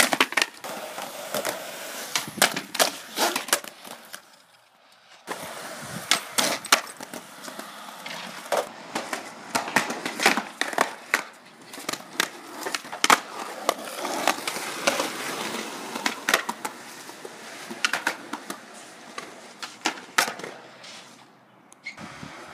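Skateboard wheels rolling on concrete, with many sharp clacks and knocks of the board and trucks hitting the ground as tricks are tried. The sound drops away briefly about four seconds in, then starts again.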